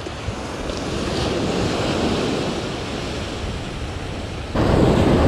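Surf washing up and back on the beach around the angler's feet, with wind buffeting the microphone. A louder rush comes in suddenly about four and a half seconds in.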